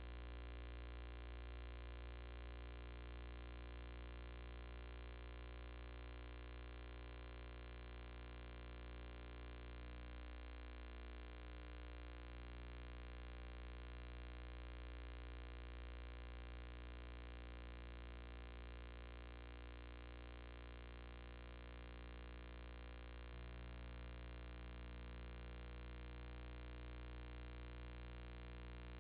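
Faint, steady electrical hum with a buzzy stack of even overtones, unchanging throughout.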